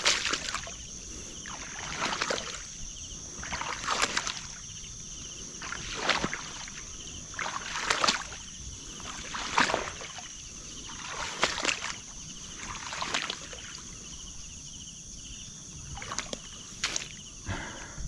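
Water sloshing and splashing in regular strokes, about one every two seconds, over a steady high-pitched drone.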